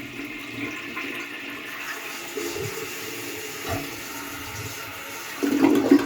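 Vintage 1930 American Standard Monaco toilet flushing: steady rushing water, with a louder surge about five and a half seconds in.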